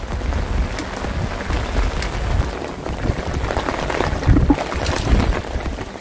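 Strong gusty wind buffeting the microphone: a deep, uneven rumble that swells and drops, with a hiss over it.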